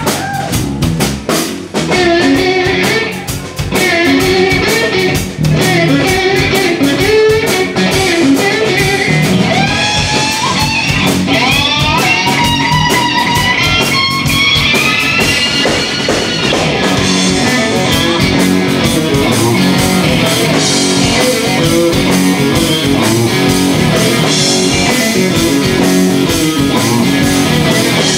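Live blues-rock band playing an instrumental passage: an electric guitar takes the lead with bent notes that slide up and down in pitch, over bass guitar and drums.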